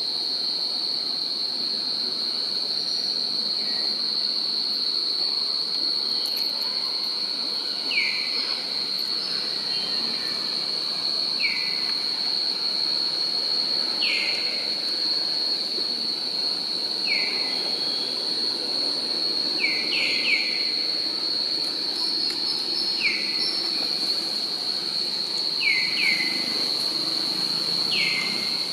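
Steady high-pitched insect drone, with short falling chirps every few seconds, some in quick pairs.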